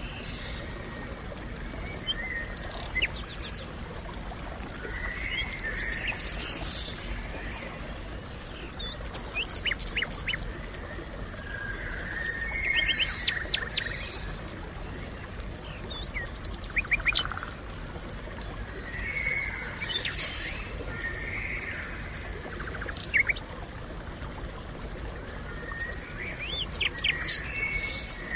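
Forest birds singing: a phrase that recurs every few seconds, mixed with quick trills and short sharp chirps, over a steady low rumble.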